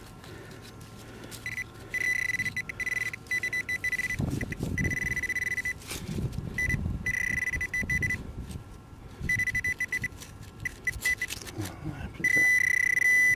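Metal detector beeping a steady high tone in irregular on-off bursts as it is passed over freshly dug wet chalk rubble, signalling a metal target (a coin) in the spoil. Stones and rubble scrape and rustle underneath as the spoil is searched by hand.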